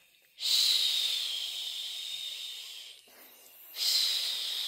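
Google Assistant playing a shushing 'shh' sleep sound in answer to a request for a lullaby: two long shushes, the second starting a little before four seconds in.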